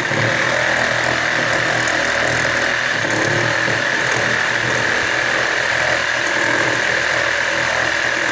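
Cordless reciprocating saw (Sawzall) running steadily as it cuts through a shed wall, a loud, even buzzing.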